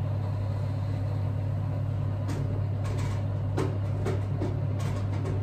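A steady low hum runs throughout, with a few light knocks and clinks of cookware as food is taken out of the oven, from about two seconds in.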